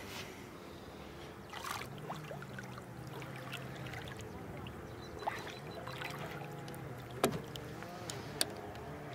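Steady hum of a boat's electric motor, its pitch wavering slightly, with a few short sharp clicks and splashes.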